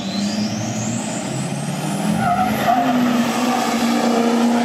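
Two 6.6-litre diesel Nissan GU Patrols launching off the drag-strip start line at full throttle, engines running hard and getting louder. A high whistle climbs steadily in pitch over the first two seconds or so.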